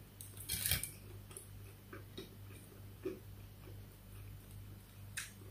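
Faint, scattered wet clicks and smacks of someone eating with their hands, picking at fried tilapia and chewing, with a small cluster about half a second in and single clicks later on.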